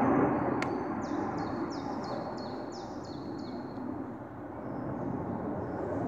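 Steady low rumble from the sky, easing slightly, which the uploader puts down to a passing airplane. From about one second in, a bird gives a run of about eight quick chirps, each falling in pitch.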